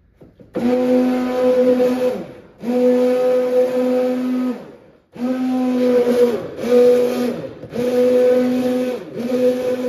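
Hand-held stick blender mixing a jug of milk formula, switched on in about six short runs of one to two seconds, its motor whine dropping in pitch as it winds down at the end of each run.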